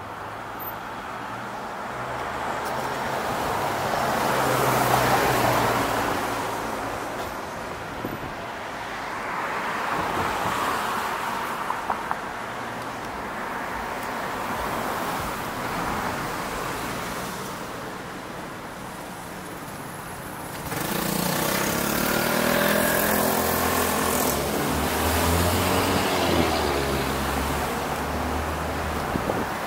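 Road traffic: cars passing one after another, each a swell of tyre and engine noise. About two-thirds of the way in, a closer engine comes in suddenly and runs on, its pitch rising and falling.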